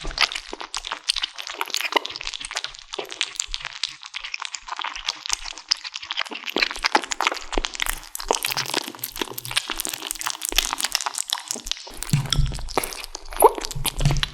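Kittens chewing and crunching on a large chicken drumstick: a dense run of quick crunches and cracks, with a few heavier low thuds near the end.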